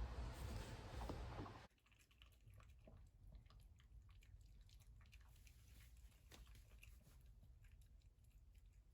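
A steady rushing noise stops abruptly under two seconds in. Then a dog chews with faint, irregular crunching.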